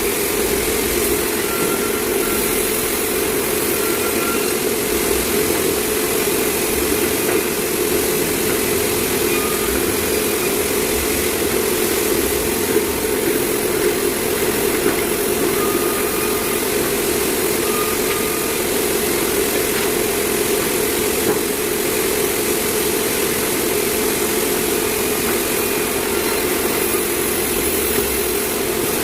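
Sawmill machinery running steadily with a constant engine-like drone, unchanging in pitch and level throughout.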